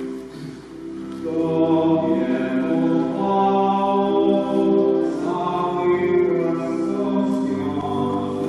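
A hymn sung in church: voices holding long notes over a steady accompaniment, swelling fuller about a second in.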